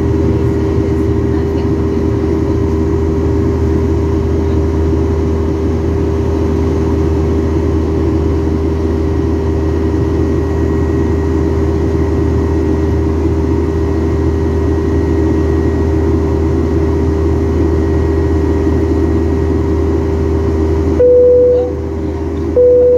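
Steady drone of a jet airliner's engines heard inside the cabin during the climb, a deep rumble with a steady hum over it. Near the end the drone drops suddenly and two short single-pitch tones sound about a second apart.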